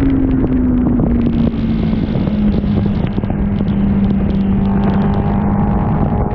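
Sport motorcycle engine on a race track with heavy wind on the microphone. The engine note falls slowly as the bike slows, then holds steady. Near the end a higher engine note starts to rise.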